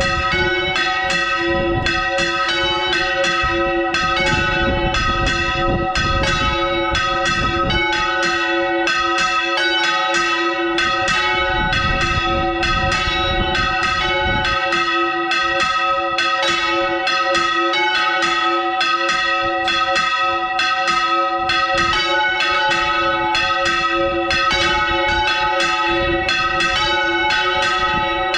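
Several church bells swung full circle on counterweighted yokes (Valencian volteo), heard close up inside the belfry. The strikes come thick and overlapping, about two or three a second, over a continuous wash of loud ringing tones.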